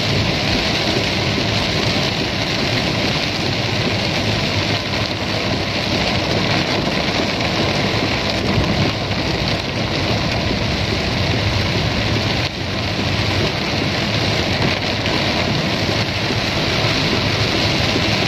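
Heavy rain pelting the car's roof and windshield, heard from inside the cabin: a dense, steady hiss.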